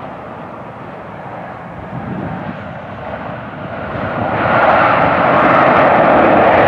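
Jet engines of an Airbus A320-family airliner on its landing rollout: a steady rushing engine noise, then from about four seconds in a much louder rush as the engines spool up, typical of reverse thrust being applied to slow the aircraft after touchdown.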